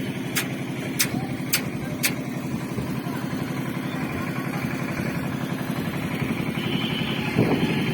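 An engine running steadily, with four sharp knocks about half a second apart in the first two seconds.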